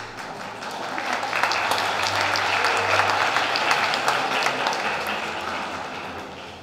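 Audience applauding: clapping that swells over the first second or so, holds, then dies away toward the end.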